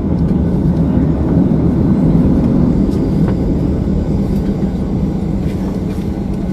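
Airliner noise heard from inside the passenger cabin: a steady, loud rumble of the engines and airflow with a low hum running through it.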